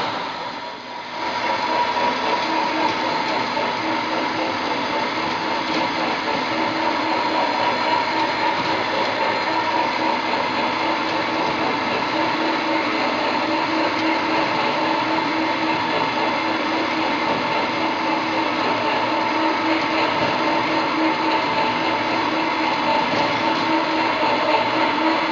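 Fan flanging machine running, its rollers turning a galvanized sheet-steel fan housing ring to form the flange: a steady mechanical hum with a constant tone through it. The level drops briefly about a second in, then holds steady.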